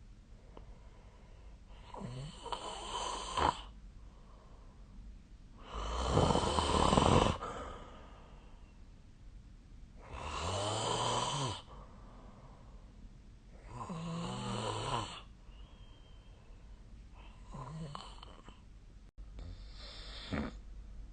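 Snoring in sleep: a snore about every four seconds, each lasting one to two seconds, the loudest about six seconds in.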